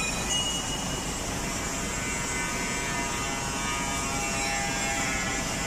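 Boom truck crane's hydraulic winch running steadily, a buzzing whine with several steady tones, as the new wire rope is spooled onto its drum.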